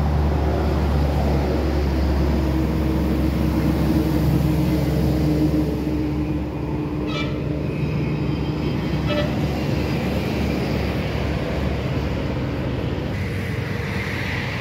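Steady low road-traffic noise, with two short vehicle horn toots about seven and nine seconds in.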